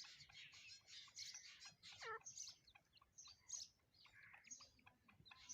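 Faint chirping of birds, many short high chirps overlapping, with one call that glides down in pitch about two seconds in.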